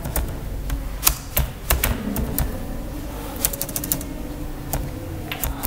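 Computer keyboard keys clicking at an uneven pace as a word is typed, with a quick run of keystrokes about three and a half seconds in.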